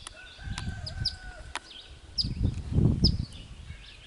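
A rooster crowing once about half a second in, a held call of about a second, over small birds giving short, sharp high chirps again and again. A low thumping rumble, the loudest sound, comes around the middle.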